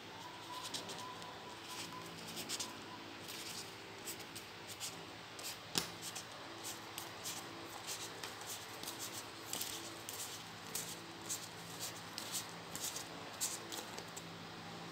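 Vietnamese polymer banknotes being leafed through and fanned out by hand: a continuous run of short, crisp plastic crinkles and rustles, with one sharper snap about six seconds in.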